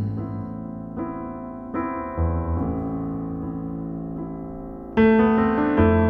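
Background music: piano chords ringing and slowly fading, with new chords struck about a second in, again near two seconds, and a louder one near the end.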